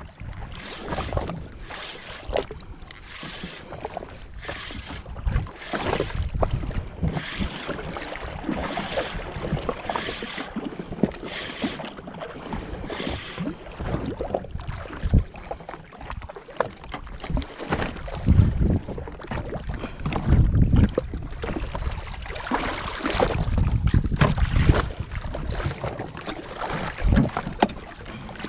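Wind buffeting the microphone in uneven low gusts, with water splashing and slapping around a jet ski at sea. The gusts grow heavier in the second half.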